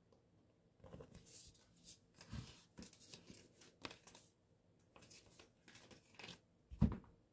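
Tarot cards being shuffled and handled: a run of soft papery rustles and swishes, then a single dull thump near the end.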